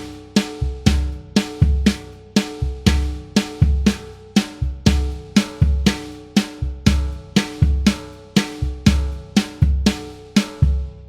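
Sampled acoustic drum kit from EZdrummer 3's Custom Shop EZX library playing a steady groove of kick drum and ringing snare, dying away near the end.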